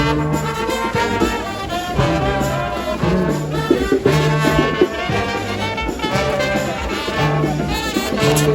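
Brass band music, trumpets and trombones over a repeating bass line of short held notes.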